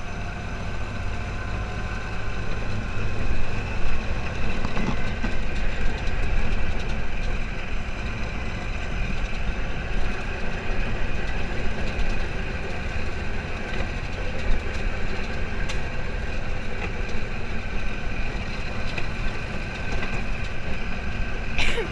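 Open off-road buggy's engine running steadily while driving over a dirt trail, heard from the driver's seat.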